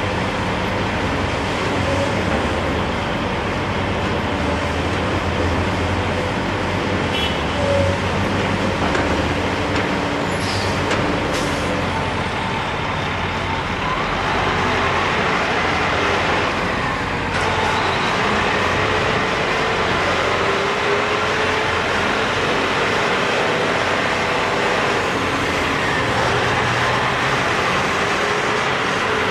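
Steady road traffic, with trucks or buses passing and engines rising and falling in pitch around the middle.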